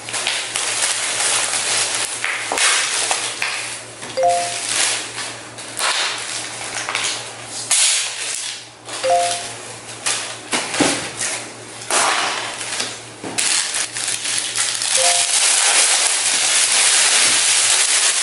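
Clear plastic packaging crinkling and rustling, with fabric handled, as new throw pillow covers are unwrapped; the crinkling is densest and most continuous over the last few seconds. A short two-note tone sounds three times, about five seconds apart.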